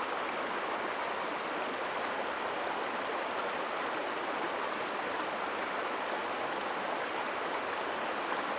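Shallow river running over rocks: a steady rush of water.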